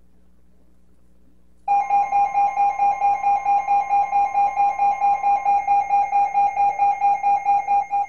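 Weather alert radio's alarm going off for an incoming Emergency Alert System warning: a shrill beep pulsing about four times a second, starting about two seconds in.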